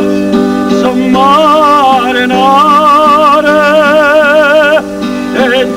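A man singing a Neapolitan love song in a warm, wavering voice, holding long notes with a wide vibrato, to his own acoustic guitar. The notes break off briefly about five seconds in.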